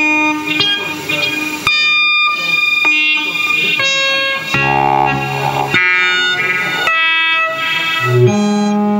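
Live electronic music played from laptops and electronic instruments: a run of held tones that cut off and jump to a new pitch about once a second.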